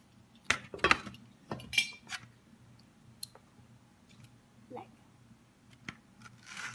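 A metal fork clicking and tapping against a plate a handful of times while eating, with short gaps between the taps.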